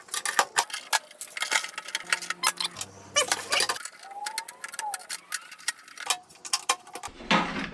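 Rapid, irregular metallic clicking and clinking of hand tools and loose metal parts as a stainless steel sandwich press is taken apart.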